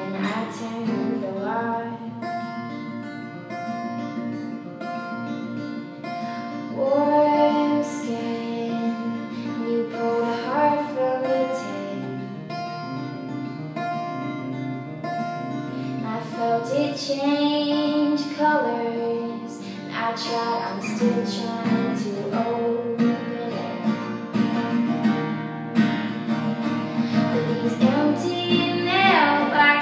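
Acoustic guitar strummed in steady chords while a woman sings a slow song over it, the sung phrases rising and falling in pitch.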